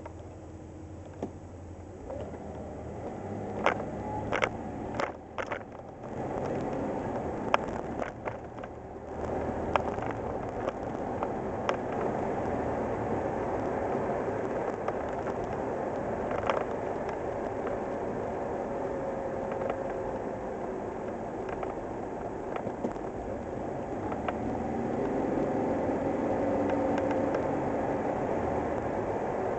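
Cab interior of a 1987 Ford Ranger pickup with its 2.9L Cologne V6, pulling away from a stop and cruising along a city street, engine and road noise steady. Sharp clicks and rattles come through in the first several seconds as it gets moving, and the engine gets louder again near the end.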